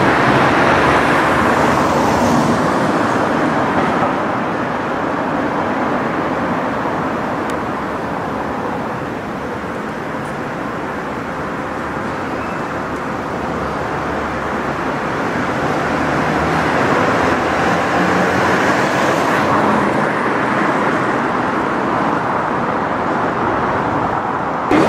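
City street traffic: the steady rush of passing cars, fading somewhat in the middle and building up again.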